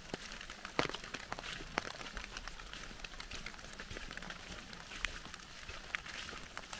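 Steady rain hiss in woodland, with scattered drops tapping on leaves and footsteps on a wet, leaf-covered path.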